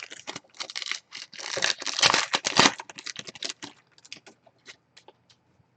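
Trading cards and their packaging being handled by hand: quick clicking and crinkling, with a dense rustle of taps in the middle that thins to scattered light ticks.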